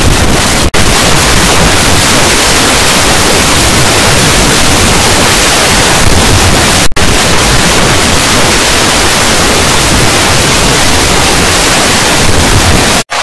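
Loud, heavily distorted static-like noise filling every pitch from deep bass to hiss, a logo soundtrack crushed by effects processing until nothing tonal is left. It cuts out for a split second three times: about a second in, about seven seconds in and near the end.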